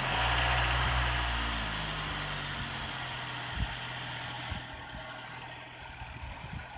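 Nissan X-Trail T31's 2.5-litre four-cylinder petrol engine just after catching, running at a fast idle that slowly eases. There is one short thump about three and a half seconds in.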